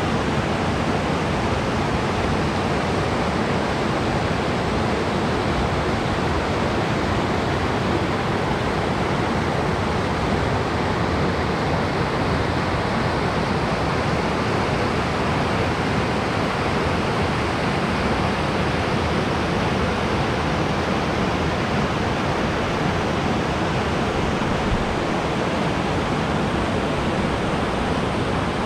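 Spring-fed stream rushing over rocks and small ledges in whitewater rapids: a loud, steady wash of water noise.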